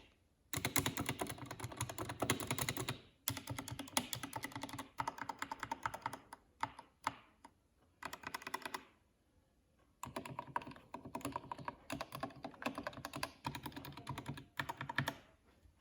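Typing on a Dierya DK61 Pro 60% mechanical keyboard with Gateron optical switches: fast runs of key clicks broken by short pauses.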